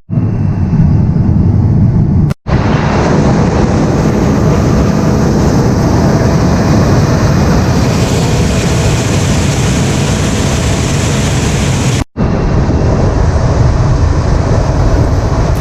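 Combine harvester running while shelling corn: a steady heavy engine and threshing-machinery drone, cut off briefly twice.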